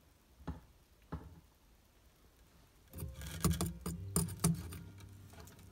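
Light clicks and taps: two soft ones about half a second and a second in, then a cluster of louder, sharper ones from about three seconds in, over a low hum.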